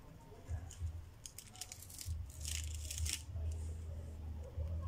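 Adhesive tape being peeled slowly off paper, in short crackling rips with a longer one about two and a half seconds in, along with light paper rustling. A low hum runs underneath from about two seconds in.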